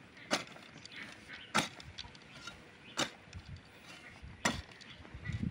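Sharp chopping strikes, four of them evenly spaced about a second and a half apart.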